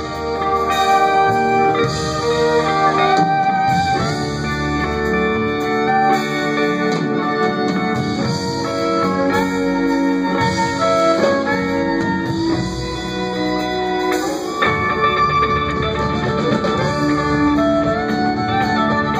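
Live band playing an instrumental passage with no singing: guitars and fiddle over upright bass and drums, with some guitar notes sliding in pitch.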